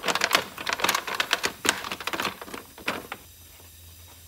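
Plastic engine cover of a Briggs & Stratton Intek V-twin being pressed and fitted into place by hand: a quick run of light plastic clicks and knocks for about three seconds, then only a faint low hum.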